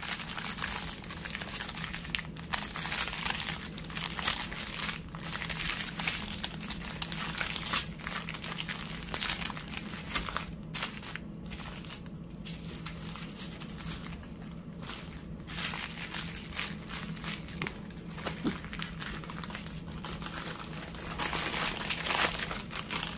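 Plastic wrapper and small bags of diamond-art drills crinkling and rustling steadily as they are squeezed and stuffed back into the wrapper, with a couple of brief lulls around the middle.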